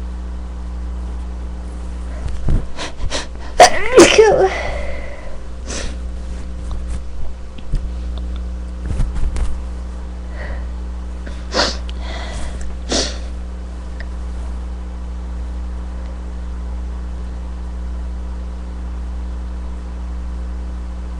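A person's sneezing fit: a cluster of harsh sneezes and sharp breaths about three to five seconds in, the loudest about four seconds in, then a few shorter sharp sneezes and sniffs around ten to thirteen seconds in. A steady low hum runs underneath and is all that is left for the last several seconds.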